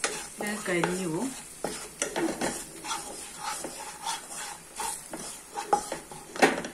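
Slotted wooden spatula stirring and scraping spice masala in hot oil around a nonstick pan: repeated short scrapes over a light sizzle, with one sharper, louder scrape near the end.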